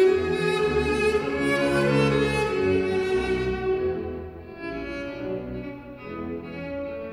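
Symphony orchestra playing a slow passage of long held notes, the bowed strings (violins and cellos) to the fore. It grows quieter about four seconds in.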